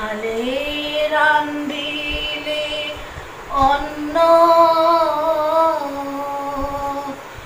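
A woman singing a Bengali devotional song solo, without accompaniment, in two long held phrases. The first sweeps up and holds for about three seconds. After a short breath the second starts louder and holds until near the end.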